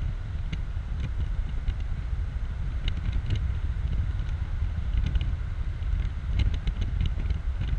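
Open-top 2004 BMW Z4 roadster driving at road speed: a steady heavy rumble of wind buffeting the microphone and road noise, with scattered light clicks.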